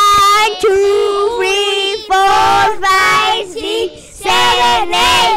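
Children singing a tune in long, drawn-out phrases of held notes, with short breaks between phrases.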